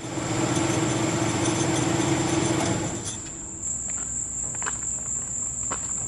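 Crickets chirping steadily. For the first three seconds an engine runs with a steady hum over them, then cuts off, leaving only the crickets.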